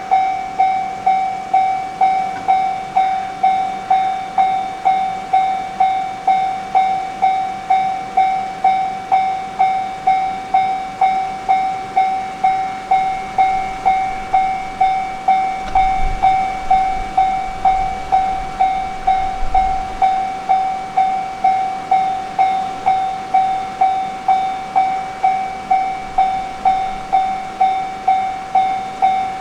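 Japanese level-crossing warning bell ringing steadily, one bright struck tone about one and a half times a second, each fading before the next. A low rumble joins in about sixteen seconds in and lasts some four seconds.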